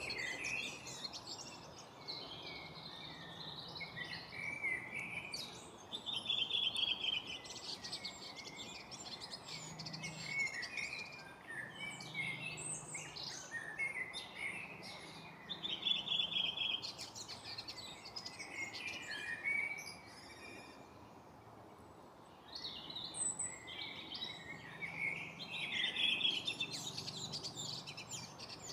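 Several songbirds singing at once in an evening chorus: overlapping chirps and trilled phrases, with brief lulls, over faint steady background noise.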